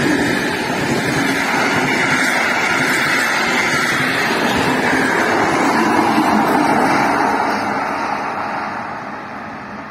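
Passenger train of coaches passing close by, its wheels rolling steadily on the rails, fading over the last few seconds as the end of the train goes by.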